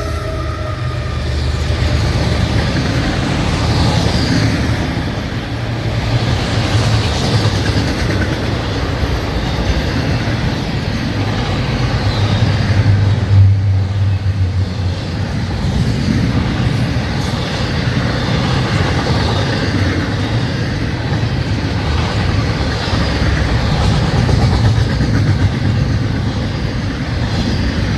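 Florida East Coast Railway freight train rolling past close by, a steady rumble and rattle of its cars' wheels on the rails that swells a little about halfway through.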